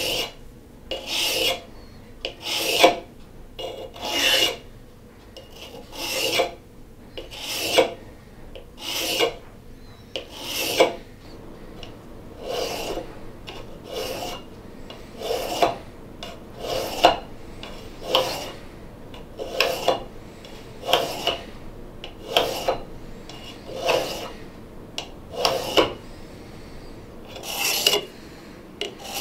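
A dull broadhead drawn through the diamond-stone grooves of an Ozcut 2 Easy Sharpener in one direction: a short scraping stroke about every second and a half, some twenty in all, as the blade edges are sharpened.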